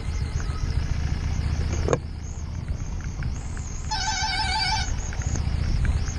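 Harley-Davidson Street 750 V-twin running at low speed under a steady low rumble of engine and wind on a helmet camera, with a single knock about two seconds in. About four seconds in a short, wavering, pulsing high-pitched call sounds for about a second.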